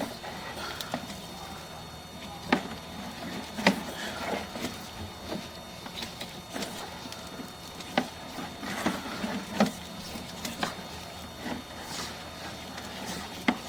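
Sewer inspection camera being fed down the pipe: irregular sharp clicks and knocks from the push cable and reel over a steady low hum.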